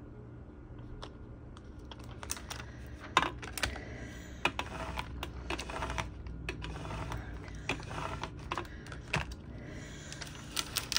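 A plastic vinyl scraper burnishing transfer tape onto a clear acrylic water bottle: irregular scraping strokes and light clicks starting about two seconds in. This is the decal being pressed down before the tape is peeled off.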